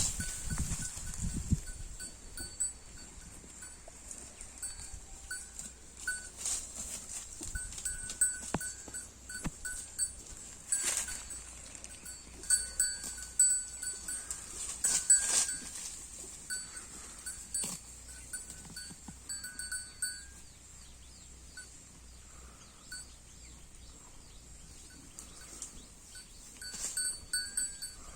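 Holstein Friesian cow grazing, tearing and chewing grass in irregular crunches, with a high ringing tone that comes and goes.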